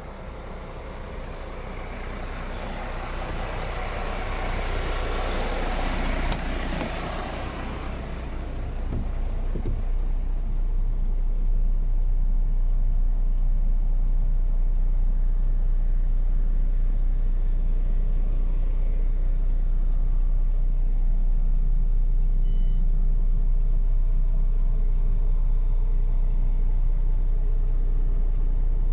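MAN TGA 35.440 truck's inline-six diesel idling steadily, a constant low hum heard from inside the cab for the second half. A broad rushing noise swells over the first several seconds and fades out by about nine seconds in.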